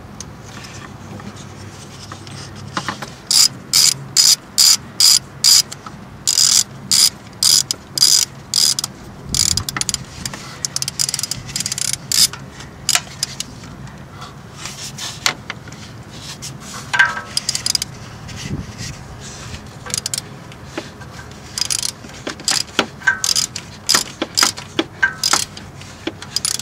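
Ratchet wrench clicking in short runs as the sensor's retaining bolt is driven back in, about two clicks a second at first, then in irregular bursts.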